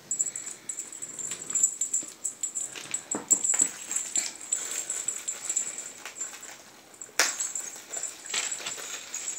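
Paper and gift-bag rustling with scattered light taps and clicks as a cat swats at a wand toy, and one sharper click about seven seconds in.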